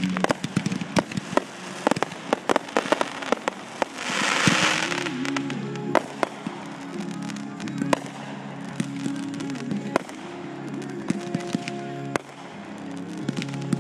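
Fireworks going off: a rapid run of sharp pops and crackles, with a louder rushing burst about four seconds in, over music playing.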